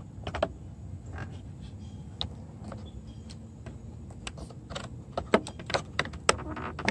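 Metal pry tool working the plastic interior trim cover behind a 2005 Dodge Grand Caravan's side mirror loose from its clips: scattered small clicks and ticks, sparse at first, then more frequent and louder from about five seconds in as the panel is wiggled out.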